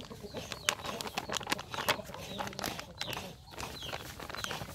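Thin plastic bag crinkling and crackling in the hand as white powder is poured out of it into a steel bowl, with birds calling faintly in the background.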